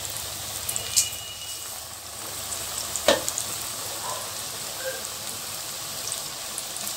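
Onion pakoda batter balls deep-frying in hot oil, freshly dropped in: a steady sizzle with fine crackling, and two sharper clicks about a second and three seconds in.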